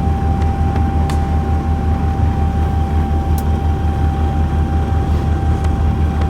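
Fishing boat's engine running steadily, a low pulsing throb with a thin steady whine above it. A few sharp clicks, one about a second in and one midway.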